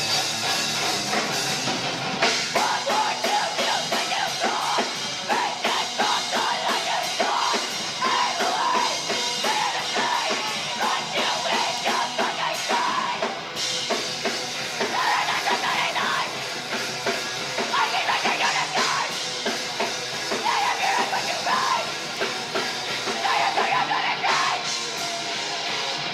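Live heavy rock band playing loudly: drum kit and guitars with yelled vocals that come in repeated phrases.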